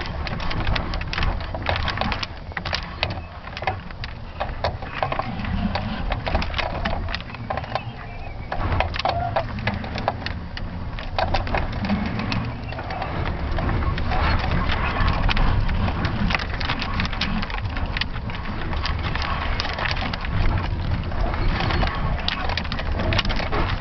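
Wind buffeting the microphone of a camera on a high-altitude balloon payload in flight: a steady low rumble with dense crackling and knocking throughout.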